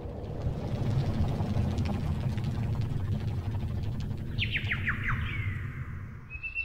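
A bird calls a quick run of about six falling notes about four seconds in, over a steady low rumble.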